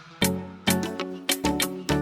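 Background music with a steady beat: drum hits about twice a second under sustained instrumental notes.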